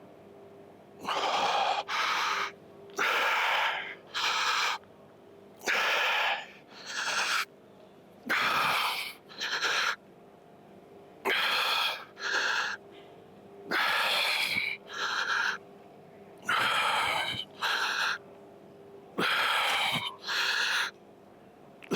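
A person breathing hard and forcefully in time with the reps of a set of dips, in pairs of loud breaths, eight pairs, one about every two and a half seconds. A faint steady hum lies underneath.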